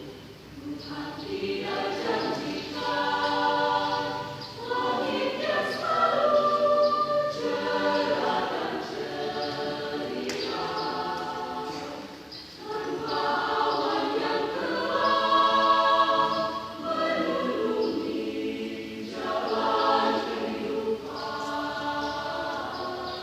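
Choir singing a church hymn in sustained multi-part phrases, with short breaths between phrases.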